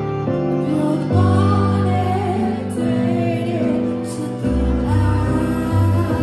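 A woman singing live into a microphone over amplified backing music, with deep bass notes that change every second or so under her wavering vocal line.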